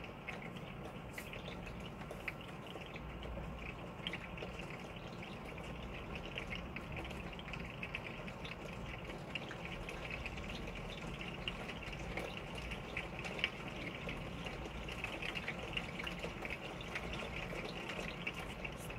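Steady rain falling: an even hiss dotted with many small, quick drop ticks.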